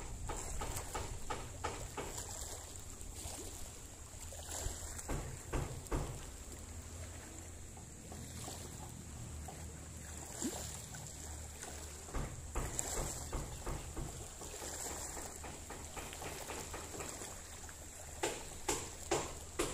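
Choppy sea water lapping and splashing below a low steady rumble, with scattered small knocks; near the end a run of regular knocks starts, about two a second.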